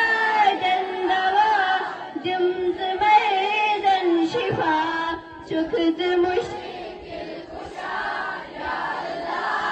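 Schoolchildren's voices singing a prayer in Kashmiri, a chanted melody that runs in phrases with short breaks between them.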